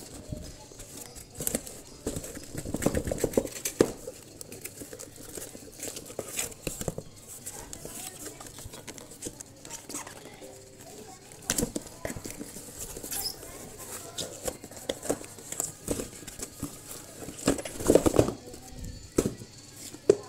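Cardboard and paper packaging rustling, scraping and knocking as a wrapped box is worked out of a cardboard shipping box by hand, in irregular bursts that are loudest about three seconds in and again near the end.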